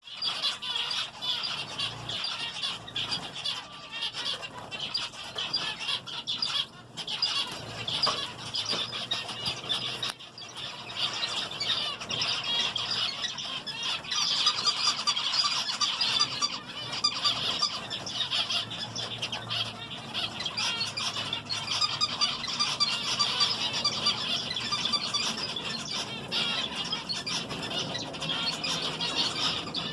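A flock of zebra finches and other small finches in an aviary calling all at once: a continuous chatter of many short, high, nasal calls overlapping one another.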